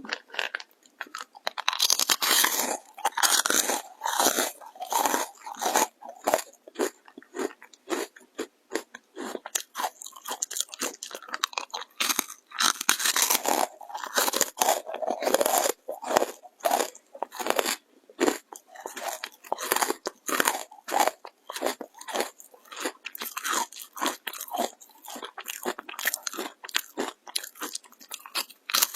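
Crisp oil-free baked dried jujube chips being bitten and chewed: rapid clusters of sharp, dry crunches with brief pauses between bites.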